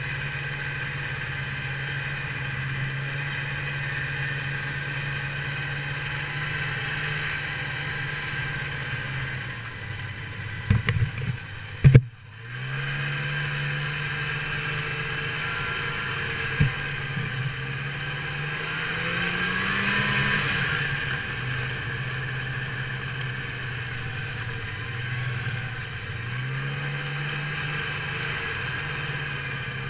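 Snowmobile engine running at a steady cruise, heard from the hood. About eleven seconds in there are a few sharp knocks and the sound briefly drops out. Later the engine note rises as it speeds up, then falls back and climbs again.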